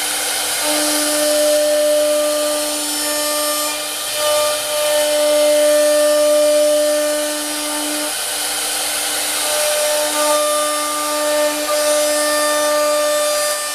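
JCM-1325 CNC router running, its air-cooled spindle giving a steady high hiss, as in routing wood. A low pitched hum with overtones sounds over it, dropping out and returning several times.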